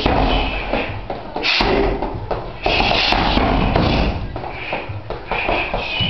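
Gloved punches and kicks striking a heavy hanging punching bag: an irregular run of thuds and slaps, several a second.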